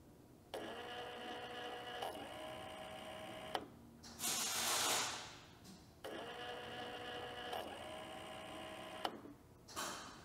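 Small electric motor of a forage harvester's sharpening-stone actuator whining as it drives the stone rod to and fro: two runs of about three seconds each, each starting and stopping abruptly, with a loud hissing rush about four seconds in between them.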